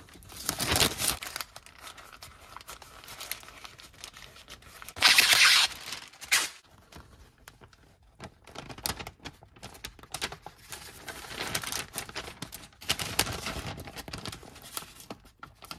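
Brown masking paper crinkling and masking tape being pulled and torn in irregular bursts. The loudest is a harsh tear about five seconds in.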